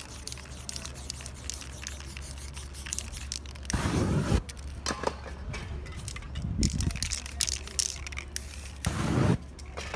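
Aerosol spray-paint can hissing in two short bursts, a longer one about four seconds in and a shorter one near the end, with small clicks and rustles of stencil handling in between.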